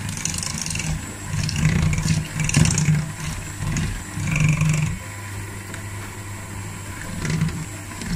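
Electric hand mixer running, its beaters whipping thick cream cheese batter in a stainless steel bowl. The motor hum is steady and swells louder now and then as the beaters work through the batter.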